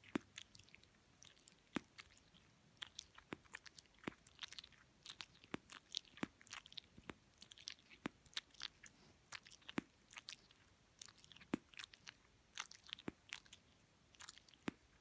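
Grey-headed flying-fox pup feeding: faint, wet sucking and mouth-smacking clicks, a few a second and irregular.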